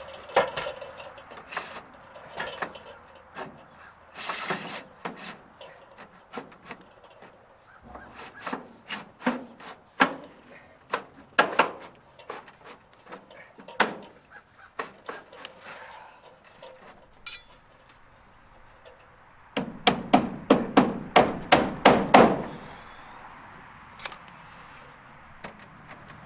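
Hammering on wood at a barn's roof-edge trim: scattered knocks and taps with some scraping of wood, then a quick run of hammer blows, about four a second for some three seconds, about twenty seconds in.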